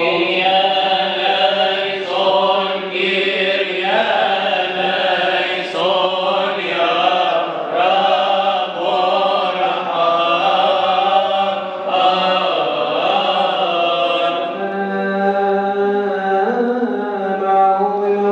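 A man's voice chanting a Coptic Orthodox liturgical hymn in long, wavering, drawn-out phrases, with a steady low note held underneath.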